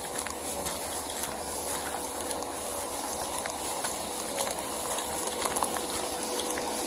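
Steady outdoor hiss picked up by a police body-worn camera's microphone while the wearer walks across a dirt and gravel yard, with a faint steady hum and scattered light clicks.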